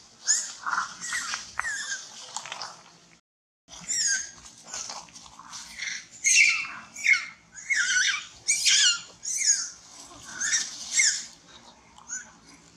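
Macaques screaming in a scuffle: a rapid run of shrill, high-pitched distress screams, many sliding down in pitch. The sound cuts out briefly about three seconds in.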